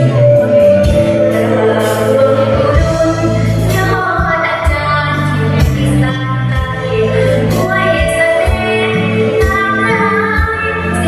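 A girl singing into a microphone over a backing track with a steady beat, amplified through stage loudspeakers.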